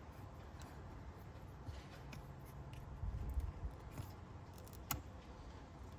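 Faint small clicks and scrapes of an opening tool being twisted in the seam of an iPhone 15's screen, with one sharper click about five seconds in, over a low rumble.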